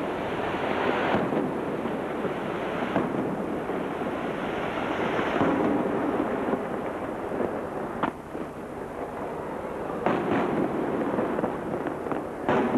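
Aerial firework shells bursting overhead: a dense, continuous crackle and rumble broken by several sharp reports, a few seconds apart.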